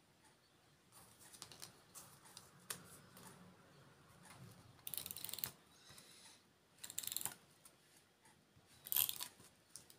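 Handheld glue tape roller (tape runner) being run across card, its winding mechanism giving short bursts of rapid ratchet-like clicking three times, about 5, 7 and 9 seconds in, with light paper handling between.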